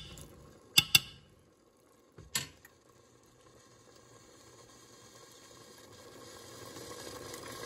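A metal spoon knocks twice against the metal pot about a second in, and once more a little later. Then beef sautéing in the pot gives a faint sizzle that grows steadily louder as its juices heat.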